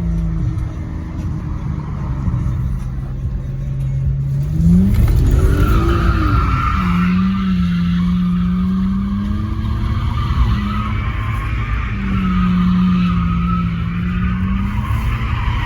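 Car engine held at high revs, its pitch jumping up and then rising and falling, with tyres squealing from about five seconds in as the car slides.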